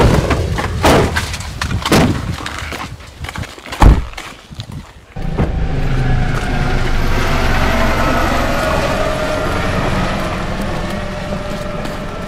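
A few knocks, then a car door shutting with one heavy thud a little before four seconds in. After a brief lull, a steady noisy rumble with faint wavering tones takes over.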